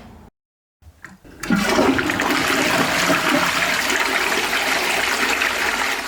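Water rushing, loud and steady, starting after a brief silence about a second and a half in and stopping near the end.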